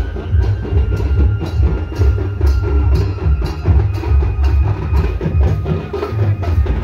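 Loud drum-driven music with a heavy booming beat and sharp strikes about twice a second. A thin high note is held steadily above the drums.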